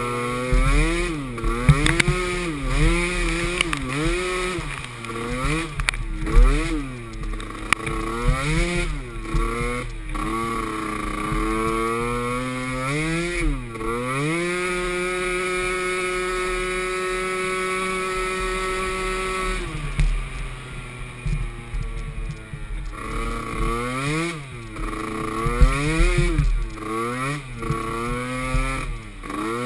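Small youth ATV engine revving up and down over and over as it is ridden over rough ground. About halfway through the throttle is held steady for several seconds, then eases off briefly before the revving resumes.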